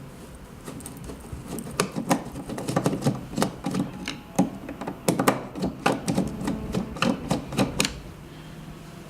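Irregular clicking and tapping of a screwdriver and small metal parts as screws are taken out of the machine's cover: many short sharp clicks and knocks, most of them in the middle seconds, easing off near the end.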